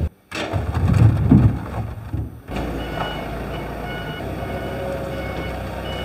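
Heavy thuds for about two seconds, as coconuts are tipped into a steel loader bucket. Then a forklift runs steadily, its reversing alarm giving short beeps.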